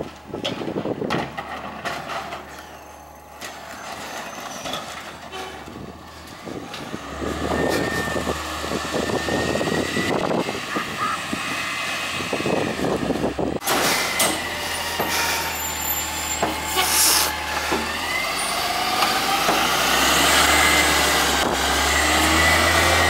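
Peterbilt 348 garbage truck's natural-gas engine running with the McNeilus rear loader's hydraulics whining, a short hiss of air from the brakes about two-thirds through, and the engine revving up near the end.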